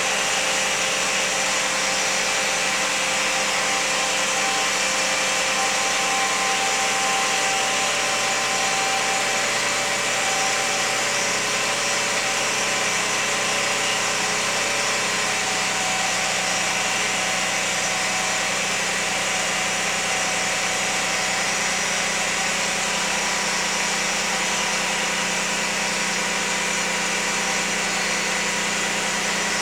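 2001 Lexus RX300's V6 engine running steadily with a constant whine over it, the whining noise the owner is recording.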